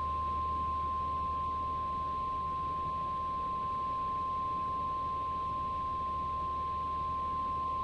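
Weather-radio emergency alert tone: a single steady, unwavering 1050 Hz tone that signals a new tornado warning is about to be read.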